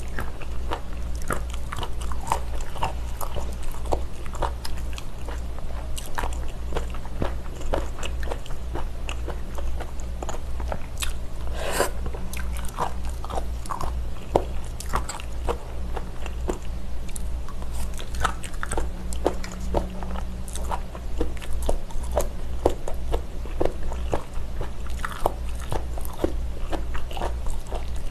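Close-miked chewing and crunching of miyeokgwi (sea mustard sporophyll), a firm, chewy seaweed: a run of irregular crisp clicks and crunches over a steady low hum.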